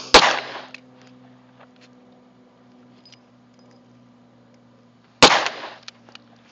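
Two handgun shots about five seconds apart, one just after the start and one near the end. Each is a sharp crack with a brief ringing tail.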